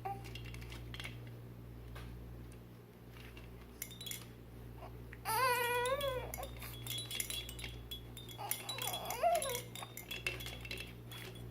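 A baby vocalising: a wavering high squeal about five seconds in and a shorter falling coo near nine seconds, with scattered light clicks and taps between them.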